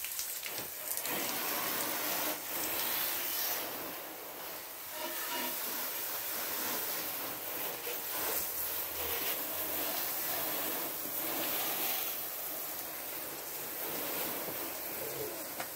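Garden hose with a pistol-grip spray nozzle spraying water onto a car's bodywork, a steady hiss of spray that rises and dips slightly as the jet moves over the panels.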